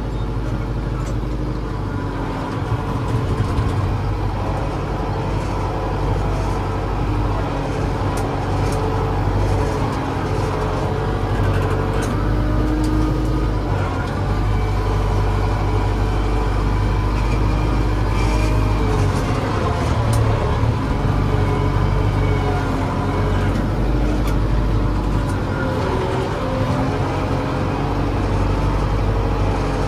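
LS 80 tractor's diesel engine running steadily under load, heard from inside the cab, its pitch rising and falling a few times as it works.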